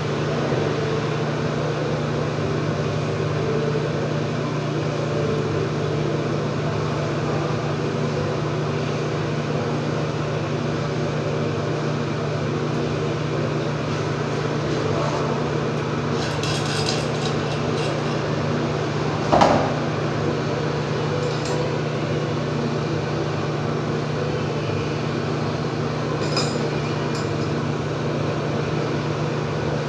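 Steady low mechanical hum, with a few light clinks and one sharp knock about two-thirds of the way through.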